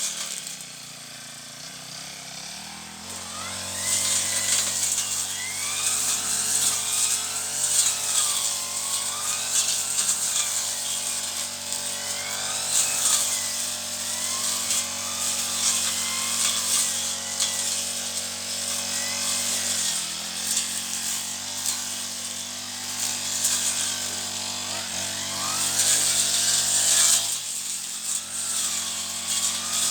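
Brush cutter's small engine running. It idles quietly for the first few seconds, then is throttled up and runs at high speed while cutting weeds.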